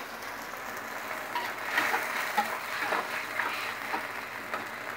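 Metal spatula scraping and clinking against an aluminium wok while stirring a simmering sauce of chillies, shallots and garlic, irregular strokes starting about a second in, over a steady soft simmer and sizzle.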